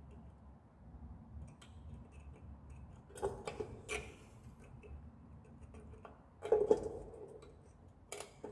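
Small metal parts of a scooter's kickstarter assembly clicking and clinking as they are fitted together by hand, with scattered ticks and a louder short clatter about two-thirds of the way through.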